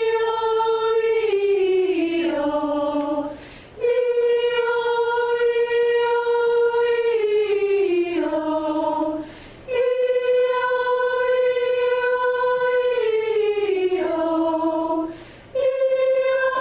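A choir singing a vocal warm-up exercise in unison. Each phrase holds one note, then steps down the scale, followed by a brief breath. The phrase is repeated three times, each time starting a little higher.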